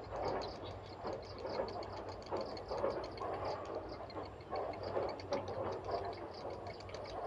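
Grey heron chicks giving rapid, rattling begging calls in repeated bursts about every half second to a second, over a low steady hum.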